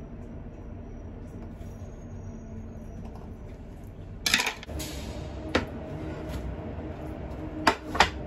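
Kitchen knife knocking and clattering on a cutting board while tofu is cut and wrapped, with paper towels rustling: a loud crackly clatter about halfway, a lighter click, then two sharp knocks near the end. A steady low hum runs underneath.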